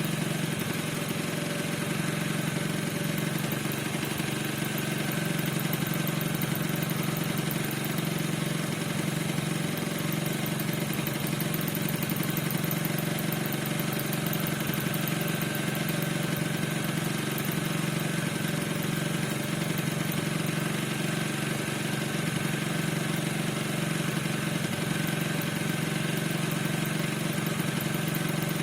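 Piaggio NRG 50 scooter's 50 cc two-stroke engine idling steadily, with a squeak whose cause the owner does not know.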